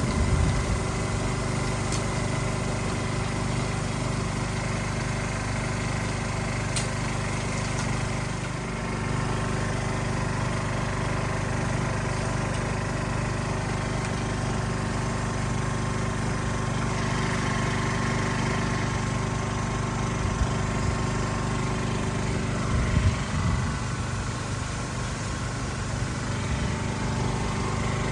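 Portable generator engine running steadily with an even hum.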